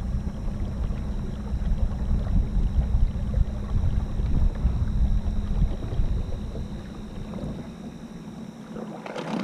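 A kayak under way on an electric trolling motor: a low, rough rushing of water along the hull and wind buffeting the microphone, easing off near the end.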